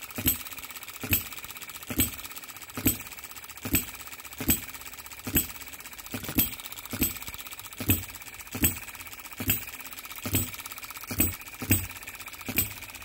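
OKMO B01 model hit-and-miss engine, a 3.6 cc water-cooled single-cylinder four-stroke petrol engine, running on its governor. It gives a sharp pop a little under once a second, with a faint fast ticking between the pops as it coasts between firing strokes.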